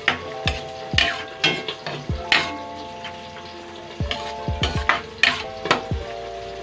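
A cooking spoon stirring noodles around a stainless steel wok, scraping the pan and clanking sharply against it again and again, over background music.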